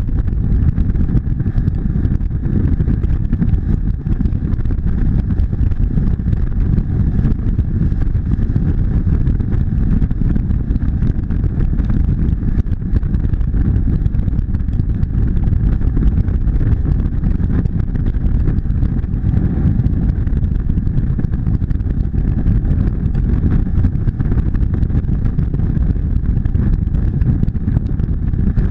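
Motorcycle cruising at a steady highway speed: a continuous engine hum under a heavy, even rumble of wind on the microphone.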